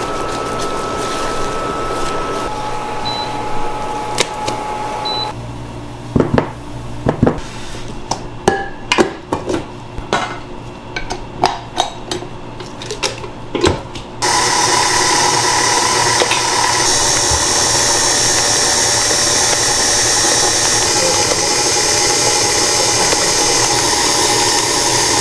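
A steady hum while choux paste is stirred in a saucepan on an induction hob, then a run of sharp clicks and metal clanks as the flat beater and steel bowl are fitted to a KitchenAid Artisan stand mixer. About halfway through, the mixer switches on and runs steadily, beating the choux dough.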